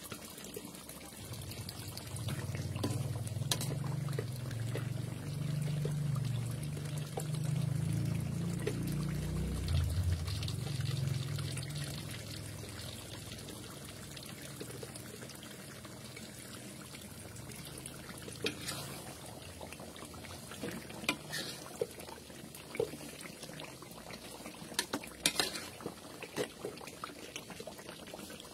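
Rendang sauce simmering and bubbling in a wok. A low wavering hum runs through the first ten seconds or so, and a spatula taps and scrapes against the wok in the second half.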